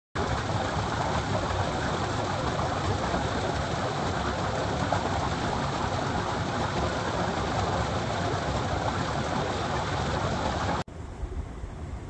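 A small trickle of water splashing steadily from under a boulder into a shallow rock pool. About a second before the end it cuts off abruptly, leaving a quieter low rumble.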